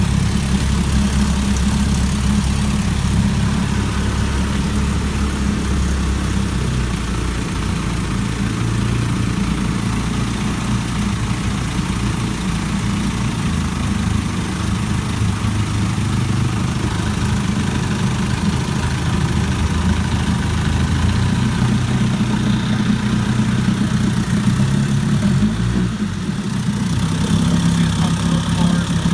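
1958 Evinrude 18 hp two-cylinder two-stroke outboard motor running smoothly in forward gear, its engine note shifting a few times.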